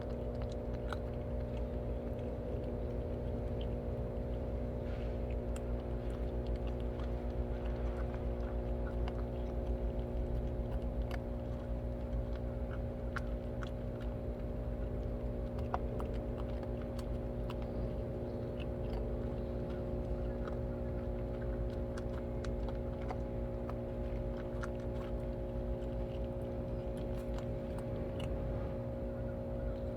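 Several cats chewing and crunching their food, a scatter of small crunches throughout, over a steady machine hum.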